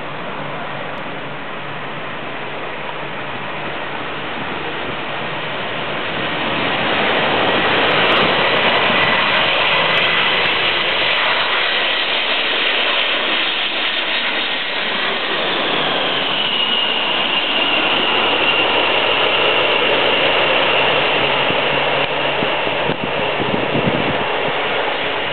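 Boeing 747-400's four jet engines on final approach, growing louder as the airliner passes low overhead. A whining tone drops in pitch as it goes by, and the jet noise stays loud as it flies on to touch down.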